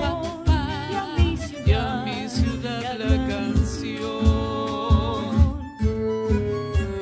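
A song sung with vibrato by a man and a woman, backed by cajón, acoustic guitar and bandoneón. The cajón keeps a regular beat about twice a second, and there are held, steady notes in the middle.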